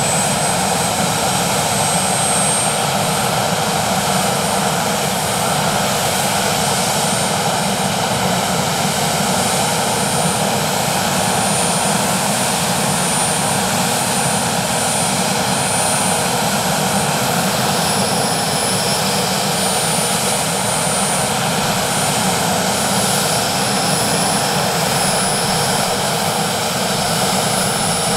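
Westland Sea King's twin Rolls-Royce Gnome turboshaft engines running on the ground with the rotors turning: a loud, steady turbine rush with a thin high whine that slowly creeps up in pitch.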